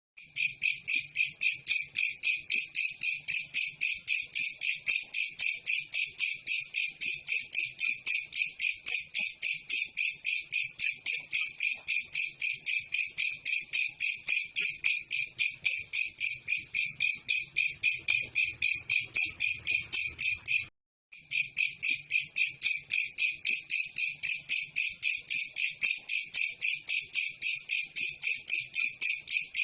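Belalang kecek, a katydid, calling: a loud, unbroken train of high-pitched clicking pulses, about three or four a second, with one break of about half a second two-thirds of the way through.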